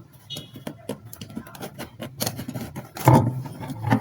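Light, irregular clicks and taps of a water heater's heating element and its rubber gasket being handled as the gasket is fitted on.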